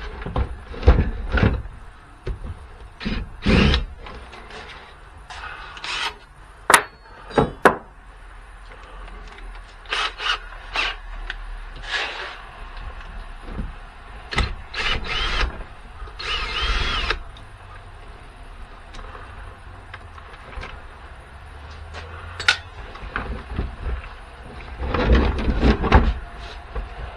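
Tools working apart the plastic casing and parts of a battery booster pack: irregular knocks, clicks and scrapes, with a brief squeak about halfway through.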